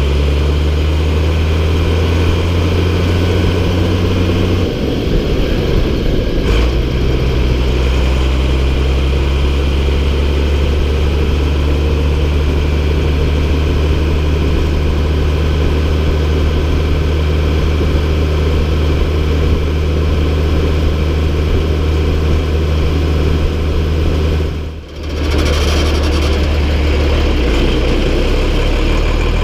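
MB Trac 1800 tractor's six-cylinder diesel engine running steadily, its note shifting a few times. There is a brief dip in loudness about four seconds from the end.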